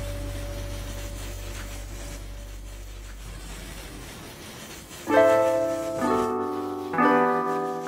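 Background piano music: a low sustained drone fades out, then slow piano chords begin about five seconds in, struck about once a second.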